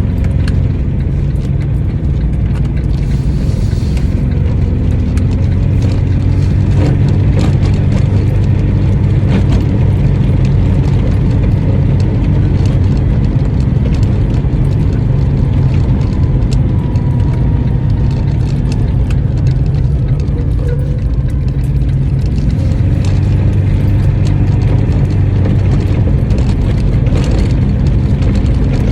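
Small engine of a licence-free microcar (voiture sans permis) running with a steady low drone, with light ticking and rattling over it.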